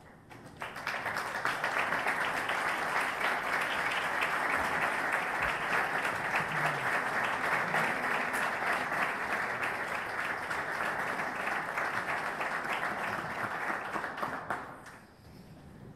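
Audience applauding, starting about half a second in, holding steady, and dying away about a second before the end.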